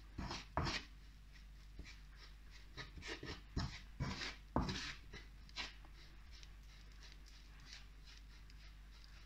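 Wooden spatula scraping and stirring dry cake crumbs in a non-stick frying pan: irregular short scratchy strokes that thin out after about six seconds.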